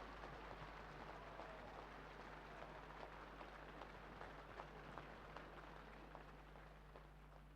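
Near silence: faint crackling hiss with a steady low hum, dying away slightly towards the end.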